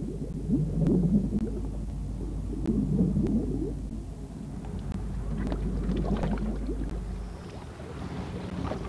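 Underwater gurgling from a scuba diver's exhaled bubbles: three bubbly bursts, each about a second long and spaced about two and a half seconds apart, at the pace of a diver's breathing. They sit over a steady low hum that stops shortly before the end.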